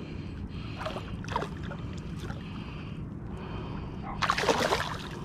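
A hooked fish thrashing and splashing at the water's surface: two brief splashes about a second in, then a louder burst of splashing near the end as a hand reaches for it.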